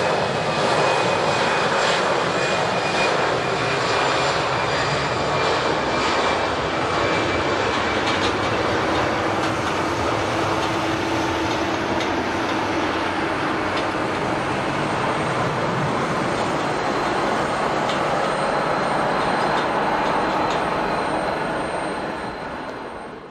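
Airliner engines running with a steady, loud noise and faint whining tones over it. The sound fades out near the end.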